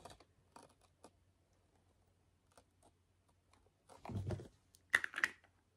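Faint clicks and taps of a glass jar of Elemis Pro-Collagen Marine Cream being handled and turned in the hands, then a louder stretch of handling noise from about four seconds in as the lid is twisted off.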